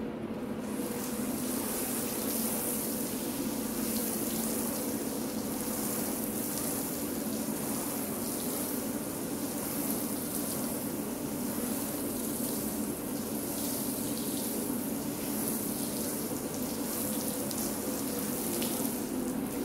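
Water running and splashing as a brush scrubs a wet, soapy rug, a steady hiss that starts about a second in.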